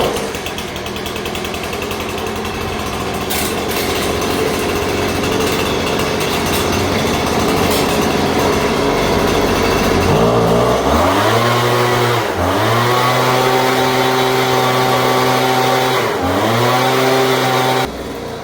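Gas-powered leaf blower's small two-stroke engine running, rough and low for about ten seconds. It then revs up sharply and holds at high revs, dips briefly twice, and is throttled back near the end, blowing out a dryer vent.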